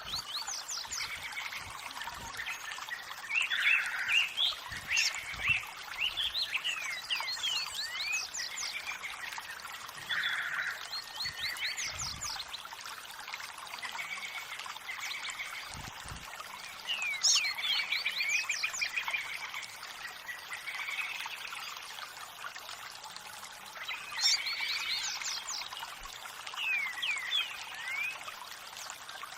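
Several birds singing, many quick chirps and whistled notes in bursts, over a steady trickle of running water.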